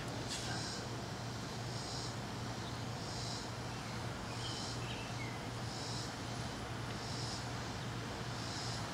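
An insect calling outdoors in a regular rhythm of short, high buzzes, about one every second and a quarter, over a low steady hum.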